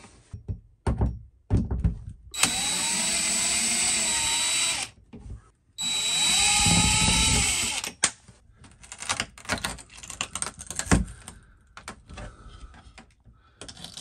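Cordless drill backing out the two screws of a shower head wall plate: two runs of about two seconds each, the motor whine shifting in pitch as each screw turns out. Light clicks and knocks follow as the plate is worked off the wall.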